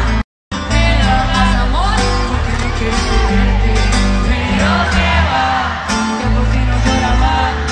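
Live concert music: a band with guitar and drums and heavy bass, with a woman singing into a microphone over it. The sound drops out completely for a split second near the start.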